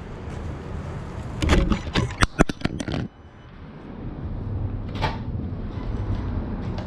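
GoPro camera knocked off an RC car and tumbling to the floor: a rumble with clicks, then a quick flurry of sharp knocks and clatter about one and a half to three seconds in, cutting off suddenly, after which a quieter low hum remains.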